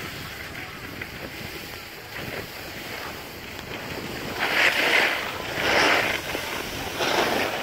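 Skis hissing over packed snow, with wind on the microphone, then several louder scraping swells in the second half as the skis scrape across the snow.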